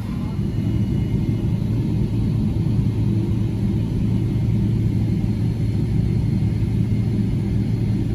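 Jet airliner taxiing, heard from inside the cabin: a steady low engine rumble with a low steady hum, swelling slightly about half a second in.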